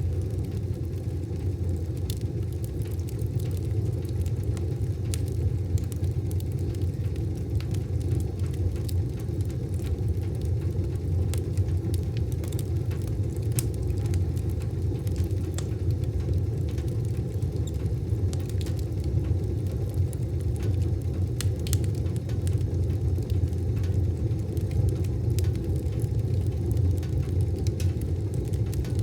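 Wood fire burning in a wood stove: a steady low rumble with scattered sharp crackles and pops.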